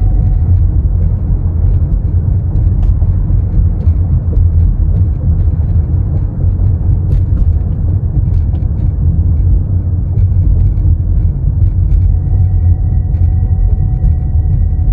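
Steady road rumble inside the cabin of a moving 2021 Toyota Prius Prime, with faint, irregular high-pitched ticks and rattles that the owner puts down to the passenger and driver door panels.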